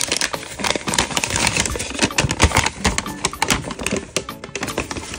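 A folded paper instruction leaflet being unfolded and handled, crinkling and rustling in a dense run of close crackles.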